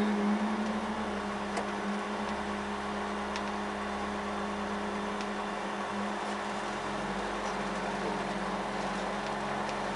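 Volvo 142S rally car's four-cylinder engine running at a steady pitch while the car stands still, heard from inside the cabin.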